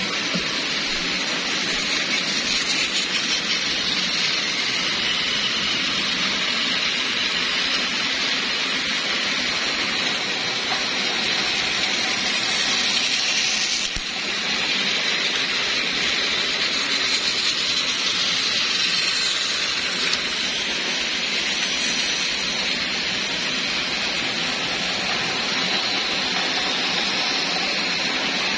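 Battery-powered toy trains running on plastic track, a steady whirring hiss of small motors and wheels, briefly dipping about halfway through.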